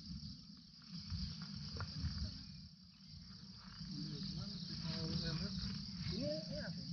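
Steady high-pitched chorus of insects over a low rumble.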